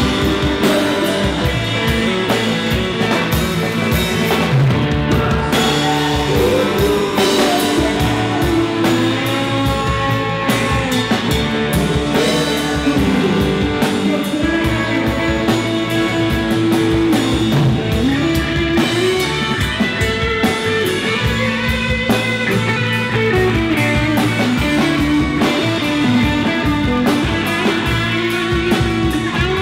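Rock band playing live: electric guitars over bass and drum kit.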